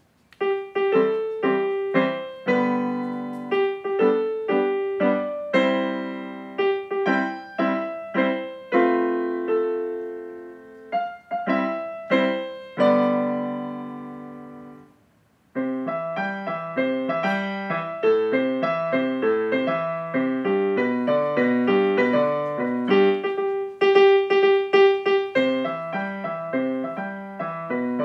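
Electronic keyboard with a piano sound playing a short birthday tune in chords. About halfway through, a held chord fades out and there is a pause of about a second. Then a livelier second part starts, with a bouncing bass line under the melody.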